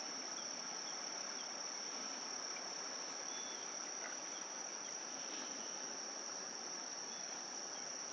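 A continuous high-pitched drone of crickets, steady with no pauses, over faint background hiss.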